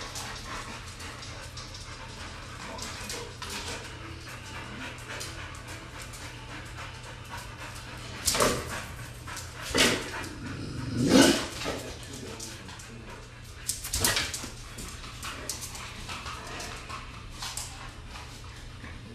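American bulldog barking at animals on the television: four short, loud barks spread over several seconds in the middle, over a steady low hum.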